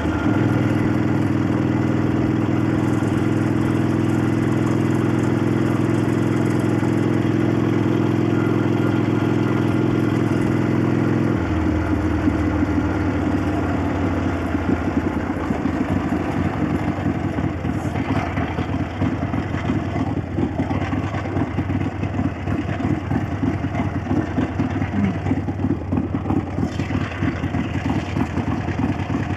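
The 883 cc Ironhead V-twin of a 1965 Harley-Davidson XLCH Sportster, running at a steady speed. About eleven seconds in it drops abruptly to a lower, uneven, choppy beat. The valves clack throughout, as they always do on this engine.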